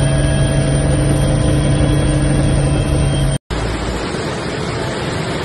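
A steady aircraft engine drone with a constant low hum. About three and a half seconds in it cuts off sharply, and a steady loud rushing of muddy floodwater pouring down a street follows.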